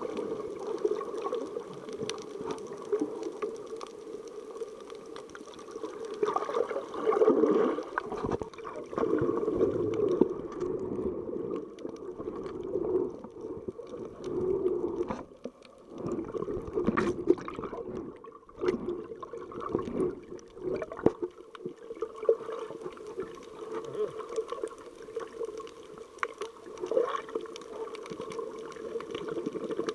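Muffled underwater water noise picked up by a submerged action camera: sloshing and gurgling over a steady hum, with uneven swells and scattered clicks.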